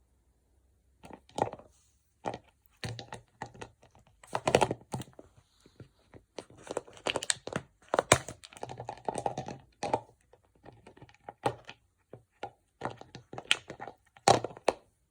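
A beagle chewing and knocking about a hard chew toy: irregular cracks, crunches and thuds in quick, uneven clusters.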